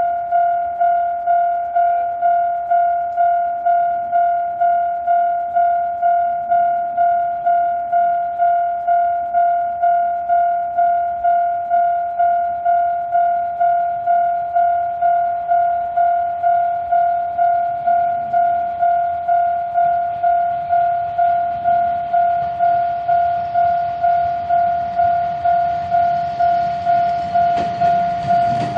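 Japanese level-crossing alarm with the electronic Tokai-type bell tone, ringing steadily at about two strokes a second. Over the last several seconds a train's rumble grows louder as it approaches the crossing.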